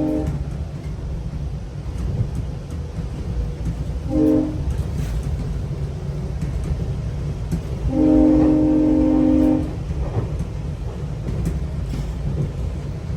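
GO Transit commuter train's horn, heard from inside a passenger coach over the steady low rumble of the train running on the rails. The tail of a long blast ends right at the start, a short blast comes about four seconds in, and a longer blast of about a second and a half follows about eight seconds in, in the long-short-long pattern of a level-crossing warning.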